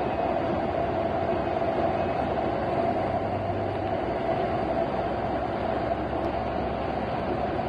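Steady rumble and hiss heard from inside a moving vehicle driving through a flooded street in heavy rain, with a constant low hum and no breaks.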